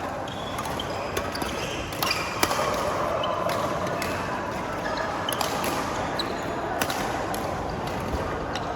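Badminton rally: a handful of sharp cracks of rackets striking a shuttlecock at irregular intervals, over a steady background din in the hall.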